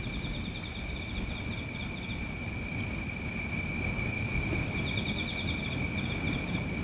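Night insects on a film soundtrack: a steady high-pitched trill, with two runs of rapid cricket chirping, about six a second, one at the start and one about five seconds in, over a low rumbling hiss.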